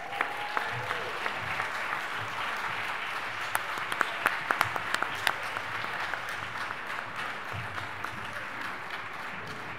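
Large audience applauding, a dense steady clapping with a few sharp single claps standing out, easing off slightly near the end.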